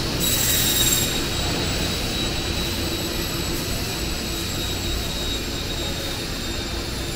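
Steady aluminium extrusion factory machinery noise: a dense rumble and hiss with thin, steady high-pitched whines over it.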